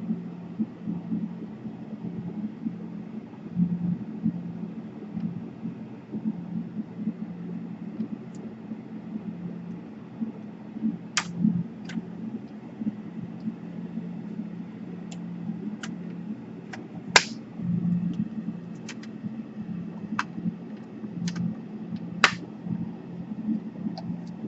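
Scattered sharp clicks and light taps of small laptop parts being handled and fitted during reassembly, mostly in the second half, over a steady low hum.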